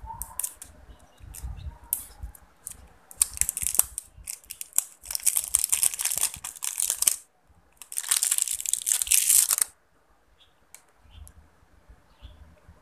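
Lip tint packaging being handled and torn open: crinkling and tearing in two long stretches, one starting about three seconds in and another around eight seconds, with scattered small clicks and rustles around them.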